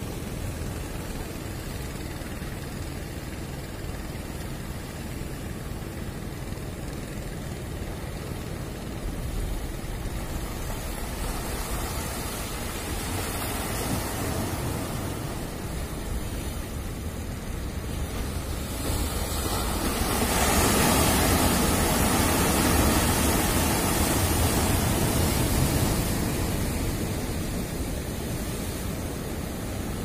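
Heavy ocean surf: big waves breaking and washing in, a steady wash over a low rumble, growing loudest for several seconds about two-thirds of the way through as a large wave breaks.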